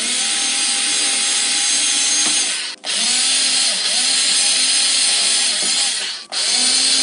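Electric drill-driver running in three spells, stopping briefly twice, its motor pitch wavering as it turns screws out of the miner's casing.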